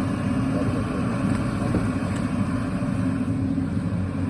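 Excavator's diesel engine running steadily at an even pitch.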